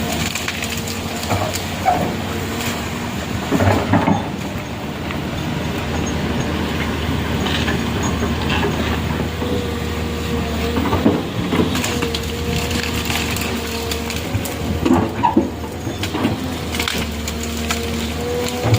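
A large engine running steadily with a faint whine, with crunching and knocking over it as stones and debris are crushed.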